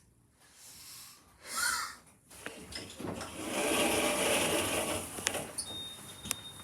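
Passenger lift machinery starting and running: a motor whir that swells for about three seconds and then fades. A couple of sharp clicks follow, then a steady high beep begins near the end.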